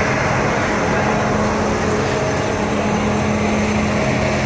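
Steady low drone of the Canadian Pacific Holiday Train's engines, with the murmur of a large crowd close by.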